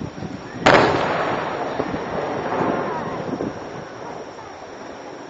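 An aerial firework shell bursting with one sudden loud bang about a second in, followed by a rumbling echo and crackle that slowly fades.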